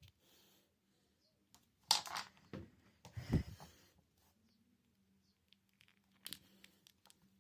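Glue under a Samsung Galaxy S8's heated back glass tearing and crackling as it is cut loose. The crackles come in short bursts, a cluster about two seconds in and another near the end.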